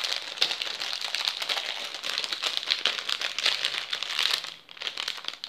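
Small clear plastic bag crinkling as it is handled, a dense crackling that thins out shortly before the end.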